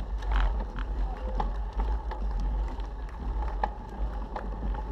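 Wind buffeting the microphone of a moving bicycle rider's camera: a steady low rumble under a noisy rush, with scattered sharp clicks and ticks.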